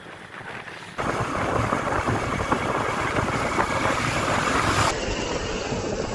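Wind rushing over the microphone with road and engine noise from a moving motorcycle, jumping louder about a second in.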